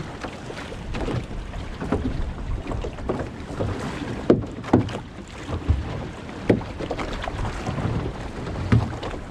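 Water slapping and sloshing against the hull of a small fishing boat, with wind buffeting the microphone. A handful of sharper slaps stand out in the second half.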